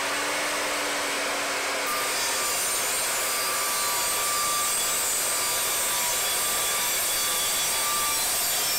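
Evolution R255SMS sliding mitre saw with the standard Evolution multi-purpose blade. The motor comes up to speed with a short rising hum, and from about two seconds in a steady, even sawing noise takes over as the blade cross-cuts through plywood.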